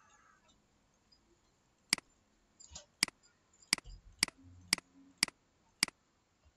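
Computer mouse button clicked seven times as sharp, short clicks. The first comes about two seconds in, and the rest follow from about three seconds in at roughly half-second intervals.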